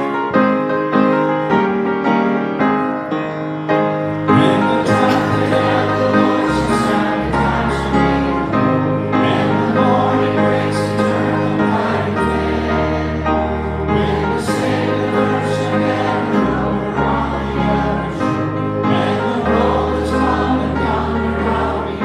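Congregation singing a hymn to piano accompaniment, with a low bass line coming in about four seconds in.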